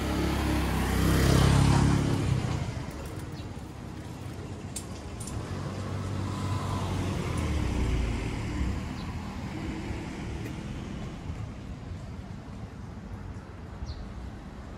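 Street traffic: a motor vehicle passes close about a second in, loudest then fading away, and another passes more quietly around eight seconds in, over a steady traffic hum.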